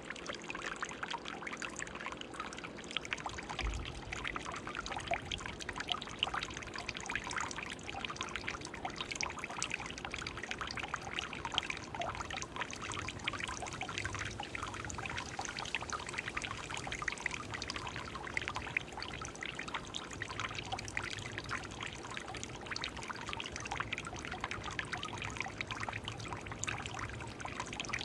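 Water steadily trickling and splashing in a running stone birdbath fountain, with the bubbler stirring the basin's surface.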